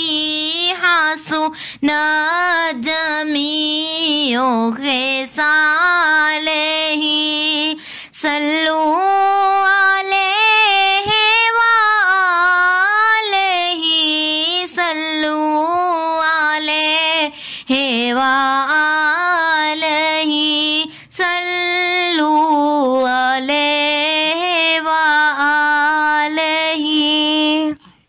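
A naat, Urdu devotional praise of the Prophet, sung by a single high voice with no instruments heard, in long held notes that waver in pitch and short breaths between phrases.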